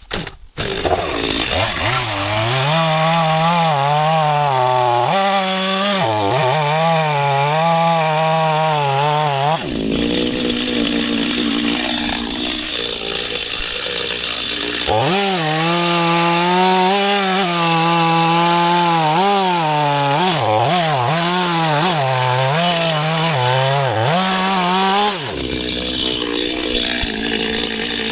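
Stihl MS 250 two-stroke chainsaw cutting through a dead coconut trunk, its engine pitch dipping and wavering as the chain bites under load. The saw comes in suddenly just after the start, and the pitch eases for several seconds in the middle before dropping and wavering again.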